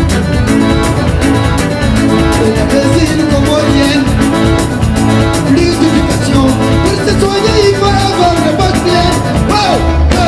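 Loud live band music with a steady beat; a wavering lead melody line, sung or played, stands out from about halfway through.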